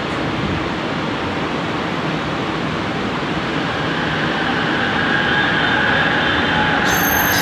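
Bombardier Innovia ART 200 metro train starting to pull away, its running hiss slowly getting louder. A steady whine from its linear induction motors comes in about halfway, and high-pitched tones join it near the end.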